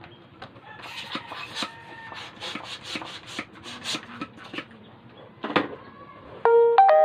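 Latex balloons squeaking and rubbing as they are pressed and twisted together by hand: a run of short squeaks, then near the end a louder, longer squeak that jumps abruptly between pitches.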